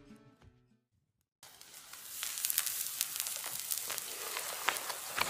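A music track fades out in the first second; after a brief gap, a spit-roasted steak sizzles over the glowing wood embers of a Firebox camp stove: a steady hiss with frequent sharp crackles and pops.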